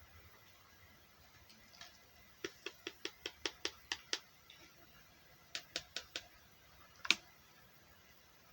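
Small, sharp plastic clicks of diamond painting drills being pressed onto the canvas with an applicator pen. A quick run of about ten clicks comes a couple of seconds in, then four more, then one louder click near the end.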